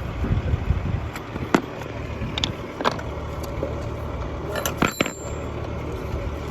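Scattered sharp metallic clicks and knocks, about seven of them, from chainsaw tools and parts being handled while the chains are tensioned and the bar nuts tightened, over a steady low rumble.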